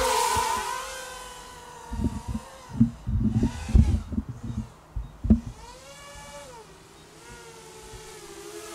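FPV drone's electric motors buzzing, the whine sliding up and down in pitch as the drone flies around. Loud low rumbling bumps on the microphone come and go between about two and five seconds in.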